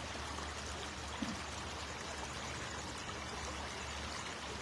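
Shallow river water running steadily, a constant even rush of flowing water.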